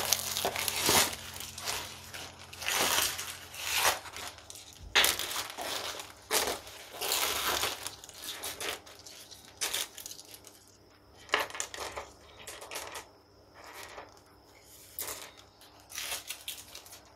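Smooth white pebbles clicking and grinding against one another as they are placed and pushed into position by hand around a plant's stems in its pot. The irregular clicks come thickly in the first half and thin out toward the end.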